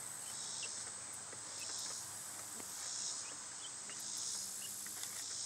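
Insect chorus: a steady high buzzing that swells and fades about every second and a half, with a few faint ticks.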